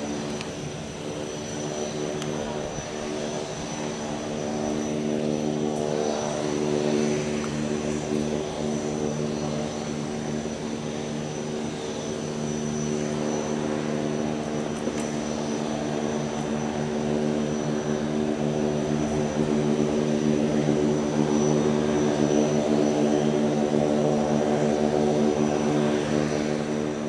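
Turboprop engines of a small twin-engine aircraft running steadily at idle: a droning propeller hum with a thin high turbine whine above it, growing somewhat louder in the second half.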